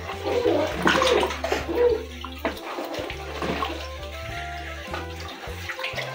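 Wooden spoon stirring a runny maize and millet flour batter in a steel bowl, sloshing, loudest in the first two seconds, with background music playing.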